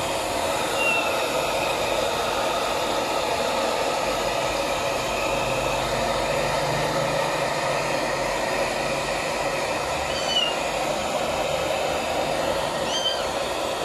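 Handheld hair dryer blowing steadily on a wet kitten's fur. A few short, faint high-pitched calls sound over it.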